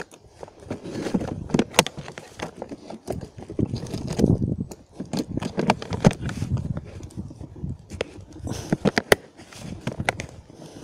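Hard plastic toolbox being handled and closed inside a motorcycle's plastic top case: a steady run of irregular clicks, knocks and scrapes of plastic on plastic, with gloved hands rubbing against it.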